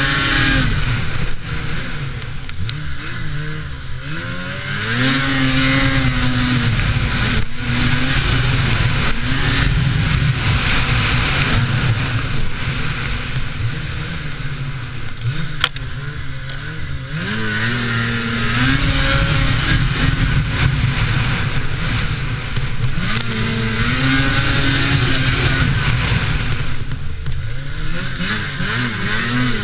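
Lynx Rave RE 850 E-TEC snowmobile's two-stroke twin engine revving up and easing off several times as the sled accelerates and slows along the track.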